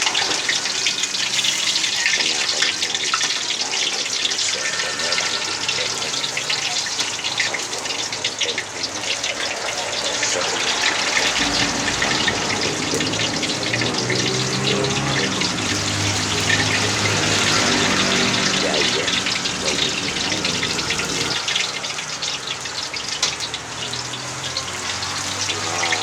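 Chicken thighs deep-frying in hot oil: a steady sizzle full of dense crackling.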